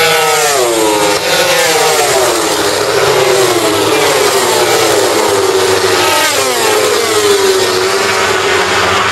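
Racing motorcycles at full throttle passing along a straight one after another, their engine notes dropping in pitch as each goes by. There is a sharp fall in pitch in the first couple of seconds and another about six to seven seconds in.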